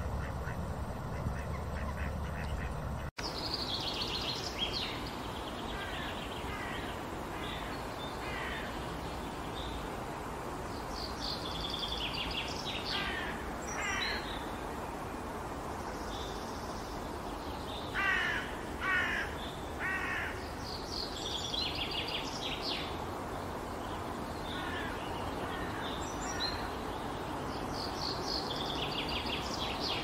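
Outdoor ambience with birds calling in short repeated series over a steady hiss, the loudest a run of three calls a little past the middle. The first three seconds, before an abrupt cut, hold a different ambience with ducks quacking.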